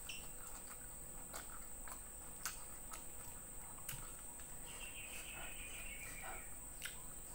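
Quiet eating sounds: scattered mouth clicks and smacks from chewing, and fingers picking apart a fried fish. A steady high-pitched whine runs underneath, and a short falling trill comes about five seconds in.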